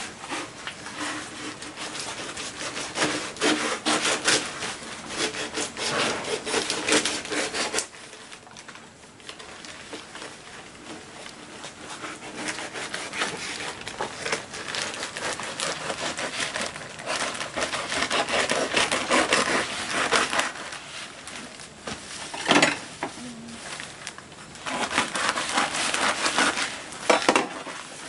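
A knife sawing and scraping through a tape-wrapped cardboard parcel, with the plastic and paper wrapping rubbing and tearing. The scratching comes in long stretches with short pauses, and there are a couple of sharp knocks later on.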